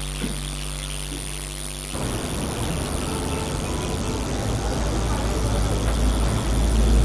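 A steady low hum of indoor room tone gives way, about two seconds in, to a low rumble of outdoor street ambience, which grows louder toward the end.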